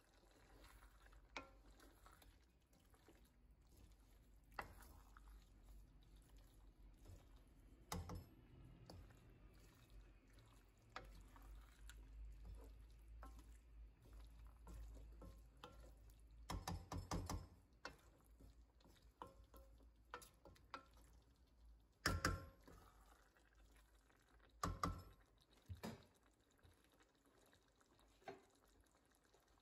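Faint simmering of a chicken and vegetable stew in a pan, with a few sharp clicks and taps scattered through, the loudest about three quarters of the way in.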